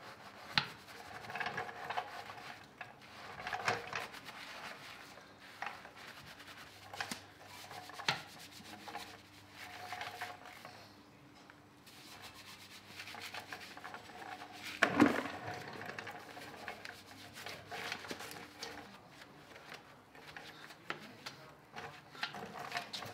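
A soapy wheel brush scrubbing the spokes and barrel of an alloy car wheel, in uneven rubbing strokes with occasional sharp knocks of the brush against the wheel, the loudest about two-thirds of the way through.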